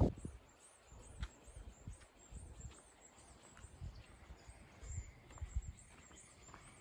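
Faint, high-pitched chirping calls repeating evenly, about two to three a second, with occasional soft knocks and thumps.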